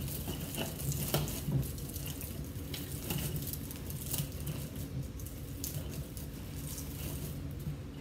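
Artificial pine branches and greenery picks rustling and crackling as they are bent and pushed into a grapevine wreath, with irregular small scratches and snaps of twigs and needles.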